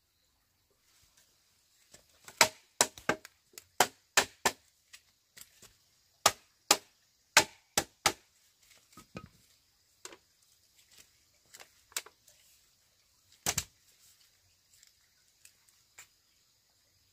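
A block of wood knocking bamboo rungs into the joints of a bamboo chair frame: a run of sharp, hollow-free wooden knocks at an uneven pace, starting about two seconds in and coming thickest in the first half, with a loud double knock later on.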